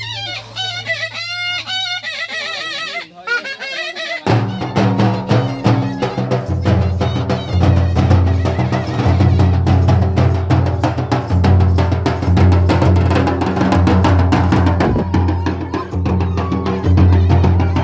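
Nagpuri shehnai dance tune: a wavering shehnai melody alone for about four seconds, then fast, dense beating on large dhak barrel drums joins under it with a steady low drone.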